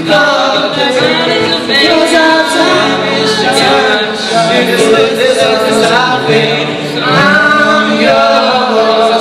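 Several young male voices singing a pop song together in harmony, live on stage, over guitar backing.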